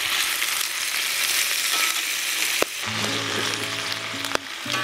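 Pork spare ribs frying hard in their own rendered fat: a dense, steady sizzle with a couple of sharp pops of spitting fat. Background music comes in about three seconds in.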